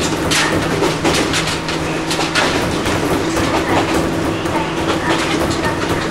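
Ohmi Railway 800-series electric motor car running along the line, heard from inside the passenger cabin: a steady hum under rail-joint clatter and irregular clicks from the wheels.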